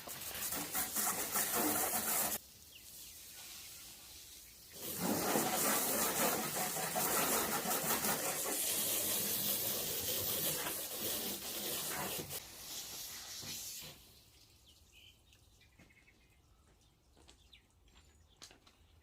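Running water, hissing steadily: on for about two seconds, off briefly, then on again, louder, for about seven seconds before it tapers off and stops.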